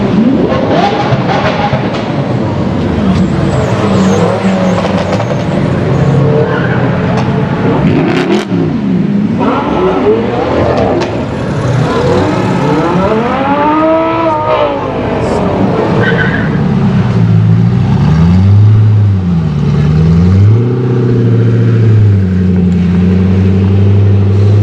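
Several supercar engines revving and accelerating one after another in a concrete tunnel, with pitch sweeping up and down as they pass. In the second half, one engine is revved up and down over and over.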